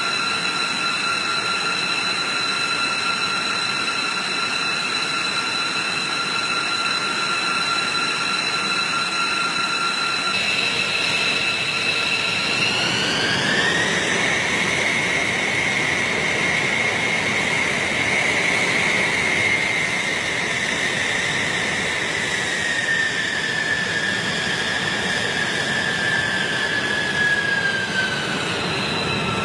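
Jet engines running with a steady high turbine whine over a broad rush. The whine rises in pitch about halfway through, then slowly falls again near the end.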